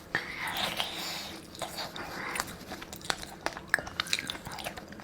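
Close-miked eating sounds of a frozen persimmon: chewing with many small wet mouth clicks and a few soft hissy sucking sounds.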